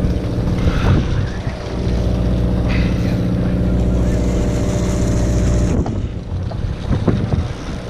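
Sportfishing boat's engine running with a steady low drone that dips briefly about six seconds in, while a hooked fish splashes at the surface beside the hull.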